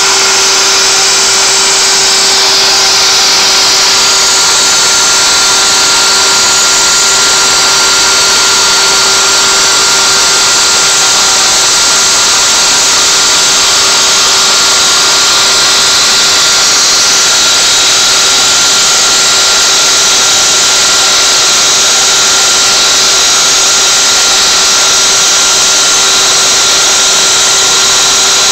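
CNC router spindle running at 24,000 rpm with a 1/8-inch solid carbide spiral bit cutting knotty alder. It makes a steady pitched tone under a loud, even hiss of cutting.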